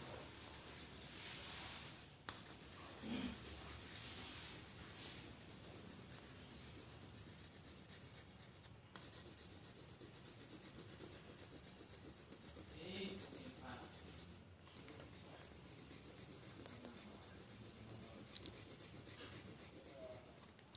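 Pencil shading back and forth over paper: a faint, steady scratchy rubbing, broken off briefly a few times.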